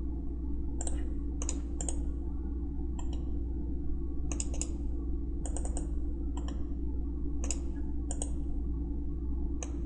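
Computer mouse clicking at irregular intervals, single clicks and quick double clicks, about a dozen in all, over a steady low hum.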